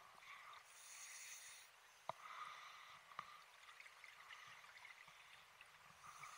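Faint underwater sound of a scuba diver breathing through a regulator: a hiss of breath and the gurgle of exhaled bubbles, with a few sharp clicks, the breath coming round again near the end.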